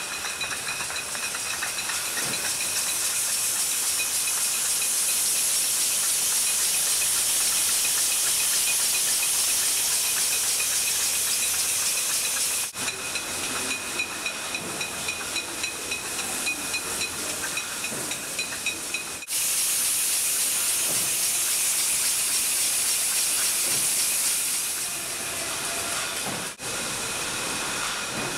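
Beer bottling line running: a loud, steady hiss from the filling and capping machinery with a faint constant whine, and glass bottles knocking lightly against each other on the conveyor in the middle stretch.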